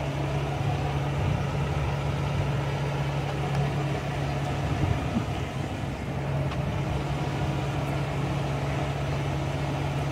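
Police SUV idling: a steady low hum that keeps an even level.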